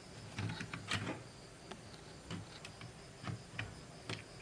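Scattered light clicks and taps of plastic laptop parts being handled and fitted together as the motherboard goes into the case.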